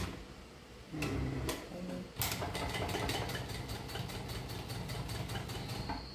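PROSEW PS-1933B industrial walking foot sewing machine, driven by its stepping motors, sewing a programmed stitch pattern: a fast, even ticking of stitches over the motor's hum from about two seconds in, stopping near the end as the program finishes.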